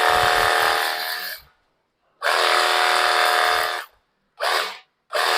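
Compact portable pressure washer's electric pump motor running in bursts as the trigger is pulled and released while spraying shampoo foam. It gives a steady whine with a hiss. It cuts off about a second and a half in, runs again for nearly two seconds, gives one short burst, then starts again near the end.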